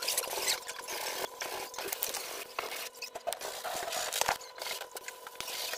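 Irregular scratchy strokes of a hand tool working a plaster wall, scraping and rubbing at the surface during wall preparation.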